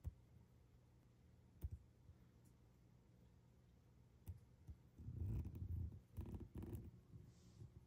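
Mostly a near-silent room with a few faint clicks. From about five seconds in come a couple of seconds of low rumbling and rustling: handling noise as the phone is lowered toward the floor.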